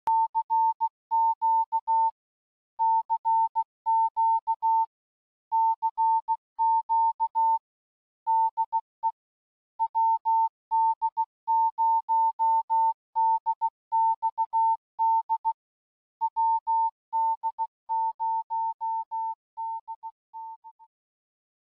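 Morse code: a single steady high-pitched tone keyed on and off in dots and dashes, grouped like letters, fading out near the end.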